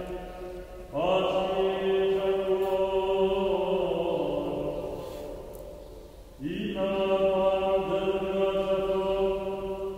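Chant sung in long, held phrases: one phrase begins about a second in, sinks in pitch and fades, and a new phrase enters at about six and a half seconds.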